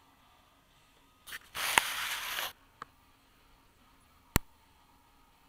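Handling noise on the camera: a short rustle about two seconds in, then a couple of sharp clicks, the clearest about four seconds in.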